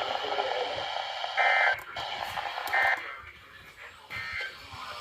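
Electronic beeper sounding three short beeps about a second and a half apart, over radio hiss that drops away partway through.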